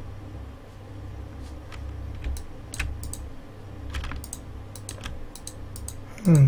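Computer keyboard keys pressed in scattered single clicks, a few seconds apart, as keyboard shortcuts are tried, over a steady low hum. Near the end comes a short, louder falling hum.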